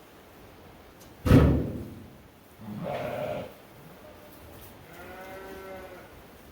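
A loud bang about a second in, then sheep bleating twice: first a harsh, rough bleat, then a clearer, pitched one.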